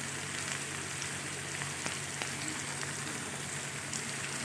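Boiled taro leaves (kochu shak) frying in oil in a kadai: a steady sizzle with faint small crackles.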